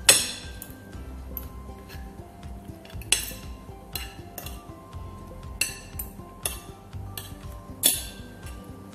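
Metal spoon and fork clinking and scraping against a plate while eating, in scattered sharp clinks, the loudest right at the start and near the end.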